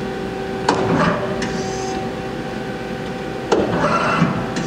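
Doosan Puma GT-3100L CNC lathe's 10-station tool turret indexing twice. Each index is a sharp clunk followed by a short whirring rush and a brief high hiss, over the steady hum of the running machine.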